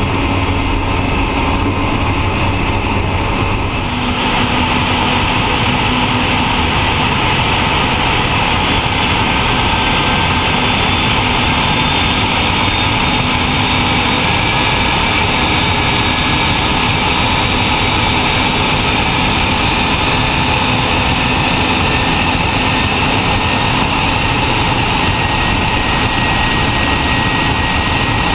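Antonov An-225 Mriya's Progress D-18T turbofan engines running at high thrust for the takeoff roll. About four seconds in, a high whine comes up sharply, then the engine noise holds loud and steady.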